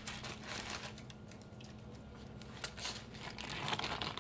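Paper crinkling and rustling as a sheet of pie dough lying on paper is handled, growing louder near the end, with a few light clicks before it. A faint steady hum runs underneath.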